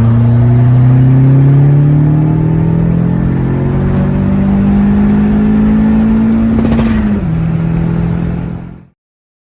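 Porsche 997 Turbo's twin-turbo flat-six running loud through a Capristo exhaust. Engine speed rises a little in the first couple of seconds, holds, and drops back about seven seconds in. The sound cuts off suddenly just before the end.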